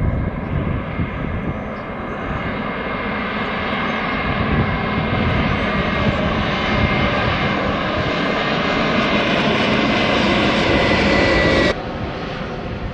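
Airbus A321neo jet airliner on final approach, its Pratt & Whitney PW1100G geared turbofans running at low approach power. The sound is a steady roar with a high whine, growing louder as the plane draws near, then dropping abruptly to a quieter level near the end.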